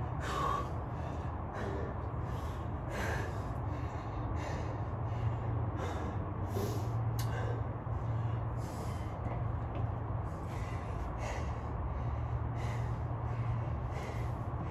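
A man breathing hard and fast from exertion, with sharp breaths in and out about twice a second, while working through squats in a weighted vest. A steady low hum runs underneath.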